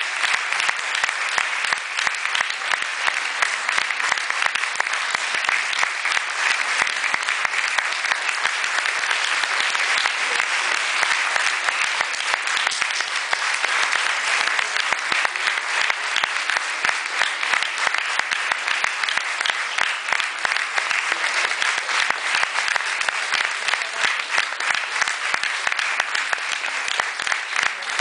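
Audience applauding steadily: a dense, even patter of many handclaps that keeps up without letting up.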